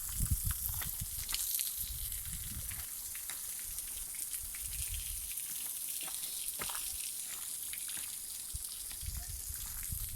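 Waterfall with a thin flow spilling about 10 to 15 metres, heard as a steady hiss of falling water. Low rumbling gusts, wind on the microphone, come and go at the start and again near the end.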